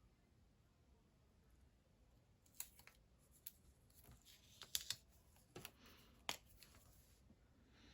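Sticker sheets and planner paper being handled: a scatter of light clicks and brief papery rustles between about two and a half and seven seconds in.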